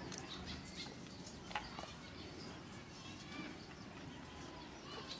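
Faint birdsong: small birds chirping now and then, with one short click about a second and a half in.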